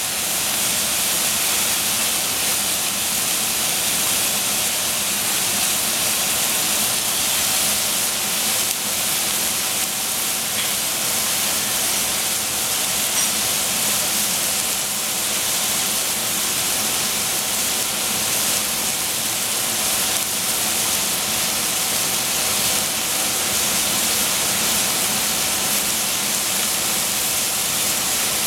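Oyster mushrooms sizzling in a stainless steel saucepan on a gas hob, a steady frying hiss.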